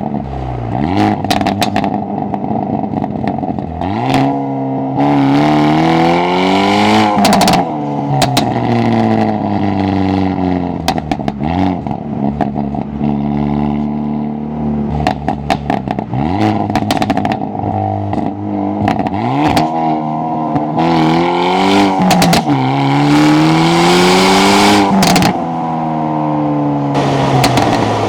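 Tuned 2023 Hyundai Elantra N's turbocharged four-cylinder engine, heard at the intake and exhaust, pulling hard through the gears of its six-speed manual. The note rises again and again and drops at each shift, with a burst of sharp cracks around the gear changes.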